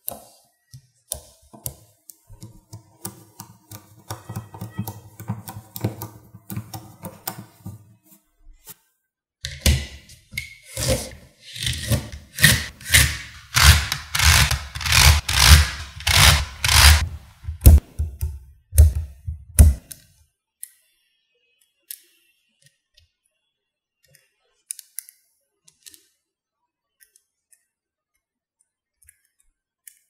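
Small magnetic balls clicking and clacking against each other and the tabletop as they are snapped together by hand. Scattered clicks at first, then about ten seconds of loud, rapid clacking with heavy thuds, then only a few faint clicks.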